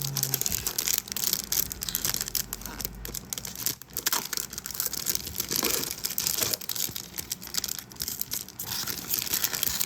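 Plastic wrapping crinkling and crackling continuously as it is handled and pulled off a diecast model aircraft part.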